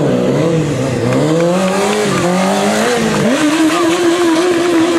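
A Honda CBR600F4i sport bike's inline-four engine revving hard during a stunt wheelie, its pitch climbing and dipping in waves. About three seconds in it jumps to a higher pitch and holds there steadily.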